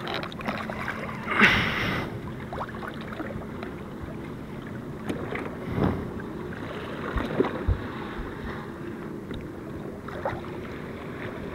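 Lake water lapping and sloshing against an aluminium boat's side, with a few small splashes as a fish is held by the tail in the water, the largest about one and a half seconds in.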